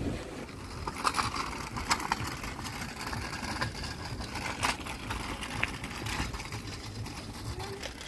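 Low wind rumble on the microphone, with a few sharp clicks scattered through it; the loudest come about one and two seconds in.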